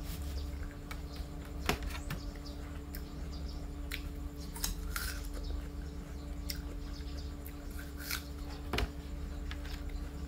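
Close-up chewing of a bitten small red strawberry apple with the mouth closed: scattered short crunches and wet mouth clicks, over a steady low hum.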